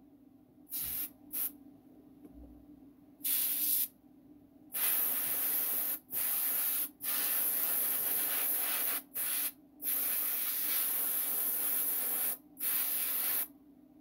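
Paasche VL airbrush spraying paint in repeated bursts of hiss as the trigger is pressed and released, some bursts under a second and others two to three seconds long, each starting and stopping sharply. A steady low hum runs underneath.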